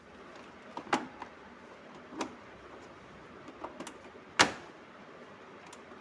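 Plastic body-panel clips of a Honda Activa scooter being pressed home: a handful of separate sharp clicks and knocks, the loudest a little past the middle, as the two locks snap into place.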